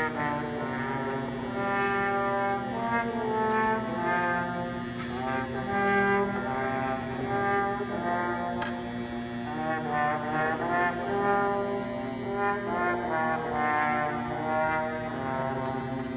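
A military-style cadet brass band playing a piece, with trombones and trumpets leading over a sustained low note and occasional percussion strokes.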